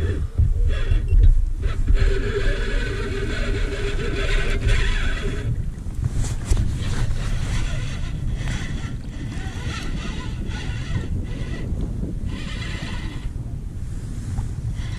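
Wind buffeting the microphone, with a whirring whine over it for the first five seconds or so, then wind with a few light knocks.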